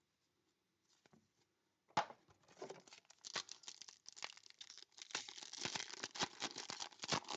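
A foil-wrapped Select Footy Stars trading-card pack being handled and torn open: a sharp crackle about two seconds in, then continuous crinkling and tearing of the wrapper.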